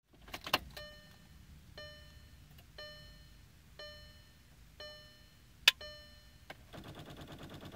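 A 2014 VW Passat's dashboard warning chime dings about once a second, with a sharp click a little before the six-second mark. Near the end a rapid chattering of clicks sets in as the key is turned: the starter relay or solenoid chattering on a flat battery, which the owner found to be the cause of the no-start.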